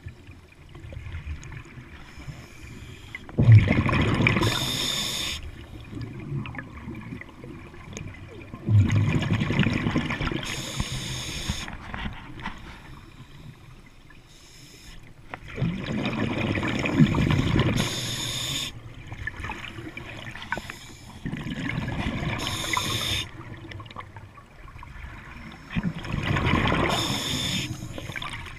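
Scuba diver breathing through a regulator underwater: five breaths about every five to six seconds, each a hiss of air and a gurgling rush of exhaled bubbles.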